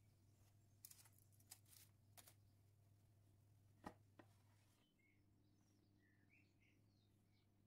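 Near silence: faint room hum with a few soft clicks.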